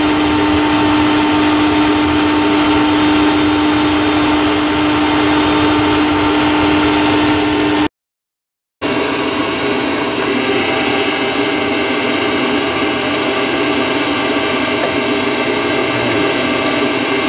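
Wood-gas gasifier's motor-driven blower running steadily with a constant hum. The sound cuts out for about a second near the middle and comes back with a slightly different tone.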